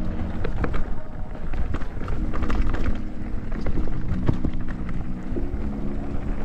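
Mountain bike riding down a rough trail: wind rumbling on the microphone, and the bike rattling and knocking over bumps, with background music.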